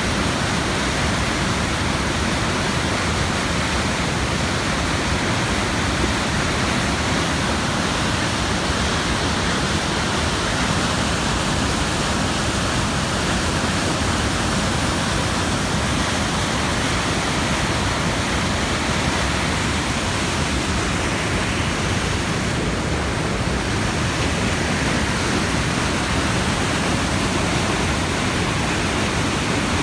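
High Falls on the Muskoka River at flood level, a very heavy volume of water pouring over the rocks in a loud, steady rush.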